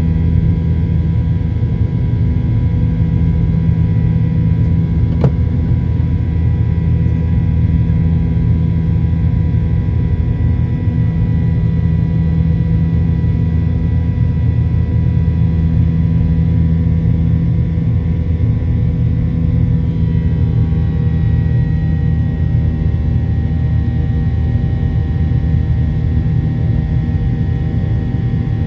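Inside the cabin of a Boeing 737-800 with its CFM56 engines at high power: a loud, steady deep rumble with a thin engine whine on top. About two-thirds of the way through, the pitch of the whine shifts slightly. There is a single faint click about five seconds in.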